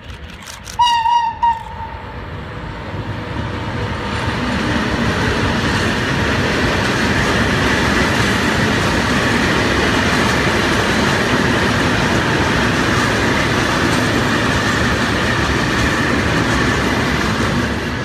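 Electric locomotive's horn sounds two short blasts about a second in. Then the locomotive and a long container freight train roll past on the rails, the rolling noise building over a couple of seconds and holding steady before it starts to fade at the end.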